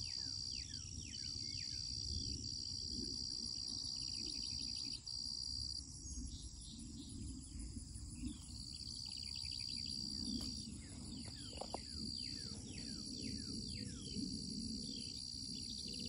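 Insects buzzing in a steady high-pitched drone that breaks off and starts again several times, with birds calling in quick, repeated falling notes, over a low steady rumble.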